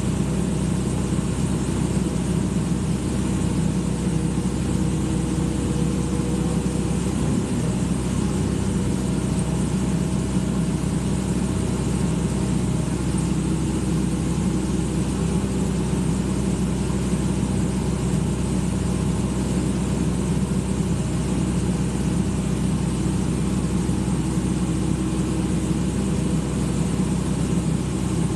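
Excavator's diesel engine running steadily at an even, unchanging pitch.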